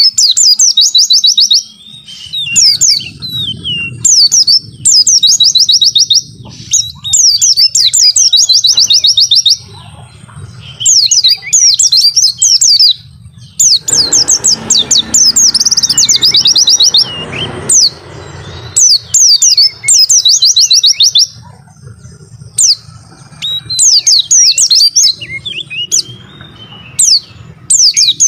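White-eye (pleci) singing loudly in fast, high, trilling chirp phrases, each a second or two long, repeated with short pauses between.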